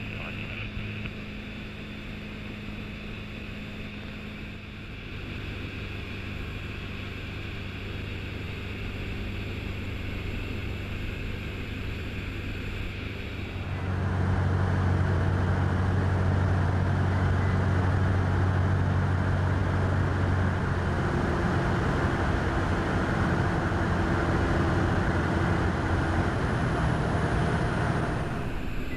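Microlight aircraft's engine and propeller droning steadily in cruise flight. About halfway through the drone becomes suddenly louder and fuller.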